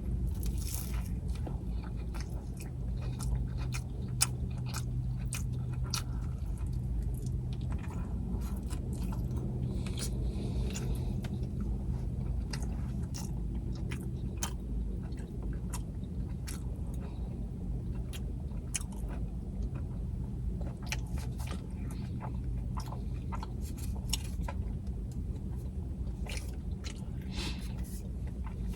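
Close-up chewing and biting of food, with many small wet mouth clicks scattered throughout. A steady low hum runs underneath.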